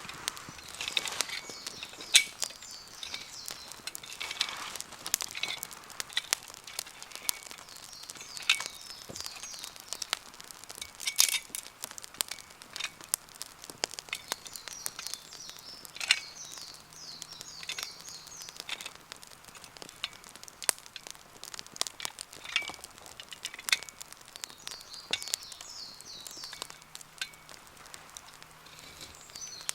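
Wood campfire crackling, with irregular sharp pops and snaps from the burning wood, a few of them loud.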